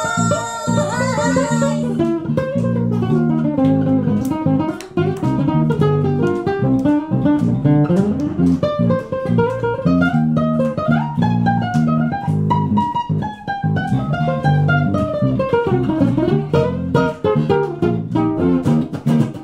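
Acoustic guitar and a second stringed instrument playing an instrumental break of a song: a lead line of plucked notes over a strummed accompaniment, with a sung line ending in the first couple of seconds.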